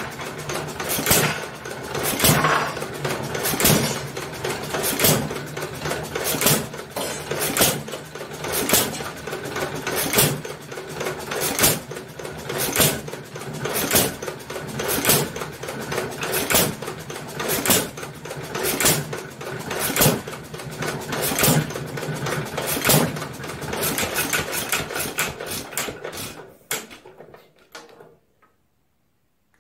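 Nelson Brothers hit-and-miss engine running on battery-and-coil ignition, with a sharp bang from a firing stroke a little over a second apart and lighter knocks between them. The sound dies away near the end.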